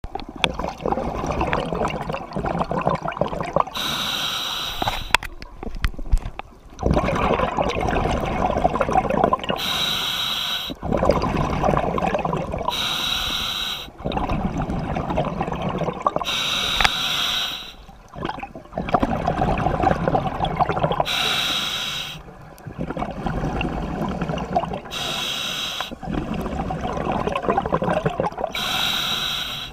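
Scuba regulator breathing underwater: a short hissing inhale about every three to four seconds, seven in all, each followed by a long bubbling exhale.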